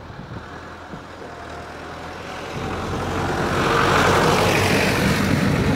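A motor vehicle passing close by: its noise builds over a couple of seconds to a loud peak and stays loud near the end.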